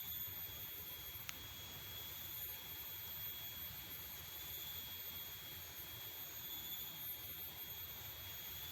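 A steady high-pitched drone at several pitches at once, slowly swelling and fading, over a low rumble, with a single click about a second in.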